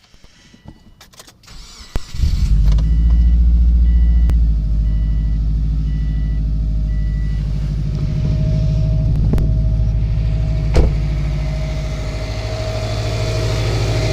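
A few faint clicks, then a 2004 Subaru Forester XT's turbocharged flat-four catches about two seconds in, runs high for a couple of seconds and settles to a steady cold idle. A chime beeps about once a second over the first several seconds. The cold-start knock, which goes away once the engine is warm, came from a timing belt guide gapped too close that rubbed against the belt as it contracted in the cold.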